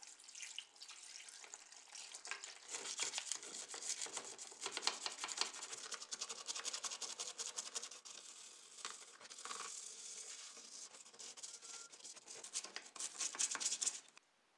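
A brush scrubbing a model car part in foamy liquid: rapid wet bristle strokes that stop abruptly near the end.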